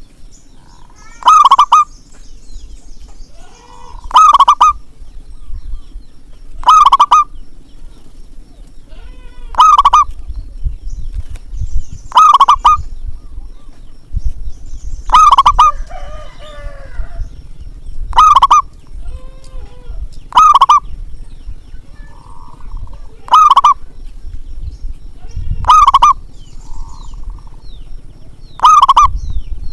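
Zebra dove (perkutut) cooing, a loud call repeated about every two and a half to three seconds. Fainter calls sound between them, with a low rumble underneath.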